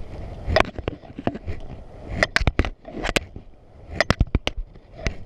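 Irregular sharp clicks and knocks, coming in small clusters of a few strokes spaced about a second apart.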